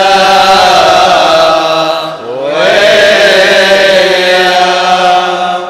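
Chaldean liturgical chant: a man's voice sings long, held notes, with a brief break and a rising glide about two seconds in, fading out near the end.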